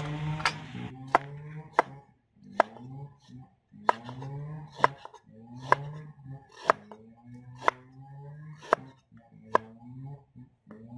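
Cleaver chopping through garlic cloves onto a round wooden chopping board: about eleven sharp knocks, roughly one a second.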